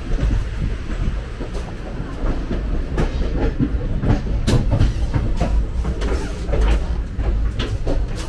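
Indian Railways sleeper class coach running, heard from inside: a steady low rumble with irregular knocks and rattles of the wheels on the track, busiest from about the middle on.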